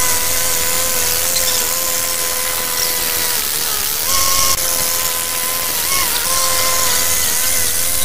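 Old diesel crawler bulldozer running steadily under load while it pushes snow: a constant high whine over the engine, with a brief lift in pitch about four seconds in.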